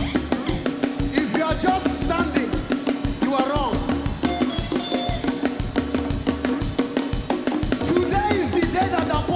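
Live praise band playing a fast, upbeat dance groove: driving drum kit and percussion on a steady, quick beat over bass, with snatches of voices over the top.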